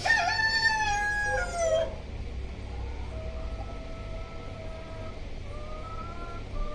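A rooster crowing, one long call of about two seconds that falls slightly in pitch at the end, followed by fainter, shorter crows from farther off.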